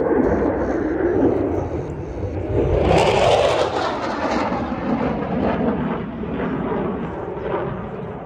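Airplane engine noise from an aircraft flying overhead: a steady rushing sound that swells about three seconds in.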